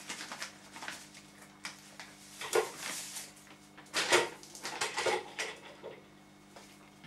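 Plastic bag rustling as powder is tipped into a plastic tub on kitchen scales, with a few light knocks and clatters of the tub and bag, the loudest about two and a half and four seconds in.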